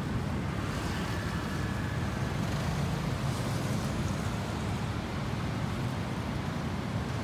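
Steady low outdoor rumble of street background noise, with no distinct events standing out.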